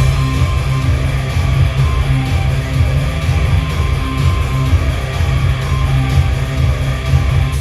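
Guitar music playing from the loudspeaker of a 1957 Zhiguli valve radio receiver, cutting in abruptly at the start and changing abruptly near the end.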